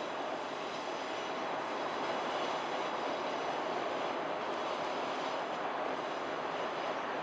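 Steady rushing noise of a moving train with a faint high whine over it, even throughout with no distinct clicks or knocks.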